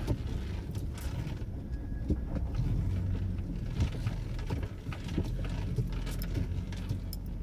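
A vehicle being driven: a steady low engine and road rumble, with scattered light clicks and rattles.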